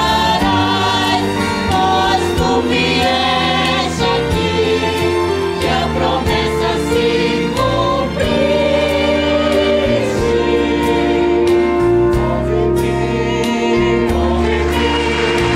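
Mixed choir singing a Christmas song, with long held notes.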